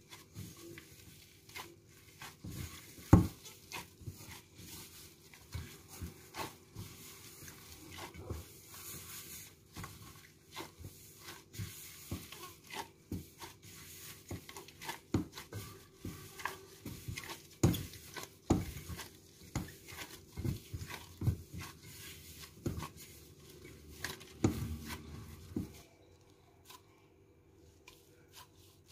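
A gloved hand mixing and kneading soft flour-oil-water dough in a stainless steel bowl: irregular knocks and thumps of the dough and hand against the metal bowl, the loudest about three seconds in. It stops a few seconds before the end.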